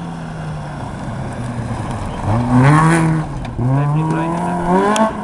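Rally car passing close at full throttle on a gravel forest stage. Its engine runs steady as it approaches, then revs up loudest as it goes by, drops at a gear change about three and a half seconds in, and climbs again toward the end, where there is a sharp click.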